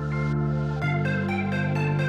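Background electronic music: held synth chords that change a little under a second in, followed by short repeated synth notes.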